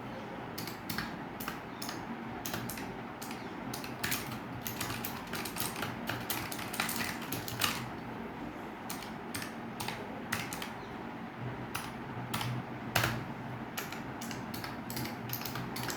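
Typing on a Razer Huntsman Mini 60% keyboard with purple clicky optical switches, a key-switch sound test: a fast, irregular run of sharp key clicks.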